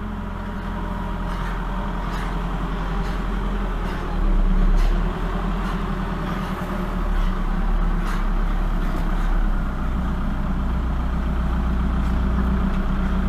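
Merlo 37.10 telescopic handler's diesel engine running steadily with a round straw bale on its boom. The engine note swells briefly about four seconds in and again around eight seconds in.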